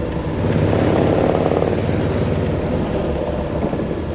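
Moto Guzzi V-twin engine of a Pembleton three-wheeler running under way at road speed. It gets louder about half a second in, then eases slightly.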